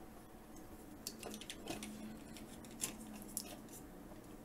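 Faint, scattered clicks and light taps of hard plastic toy parts being handled and pressed together as a plastic add-on grill piece is worked into place on a Transformers Optimus Prime figure, over a faint low hum.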